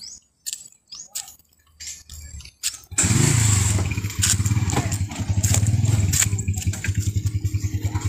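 The motorcycle engine of a motorcycle-and-sidecar tricycle starts after a few clicks and a short low hum, catching about three seconds in, then keeps running with a fast, even putter.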